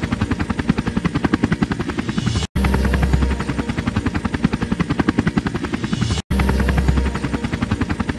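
Helicopter in flight, its main rotor beating in a fast, even pulse over the turbine noise. The sound cuts off abruptly and starts again the same way twice, about every four seconds.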